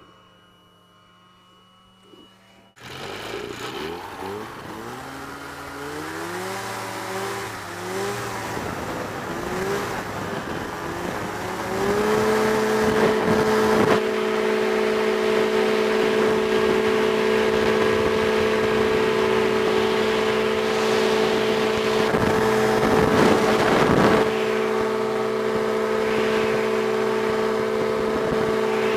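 Aerochute powered parachute's engine and propeller opened up for takeoff. The engine comes in abruptly about three seconds in, rises in pitch in surges over the next several seconds, then holds a steady high-power drone as the machine climbs out.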